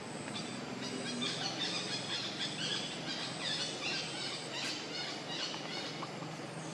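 A rapid flurry of short, high-pitched animal chirps and squeaks, many overlapping, starting about a second in and fading near the end.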